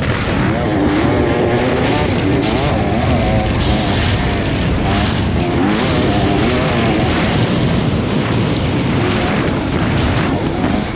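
Dirt bike engine running hard under the rider, its pitch rising and falling over and over with the throttle through the track's jumps and turns.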